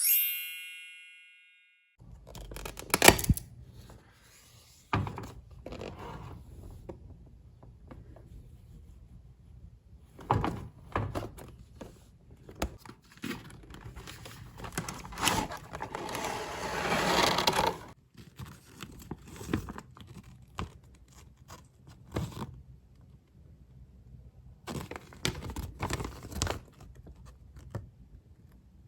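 Hands handling toy packaging and pieces: scattered taps, thunks and scrapes, with a longer scratchy rustle past the middle. A brief ringing tone sounds at the very start.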